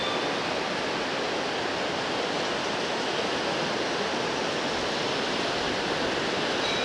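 Steady rushing of the Alaknanda river, an even noise that holds the same level throughout.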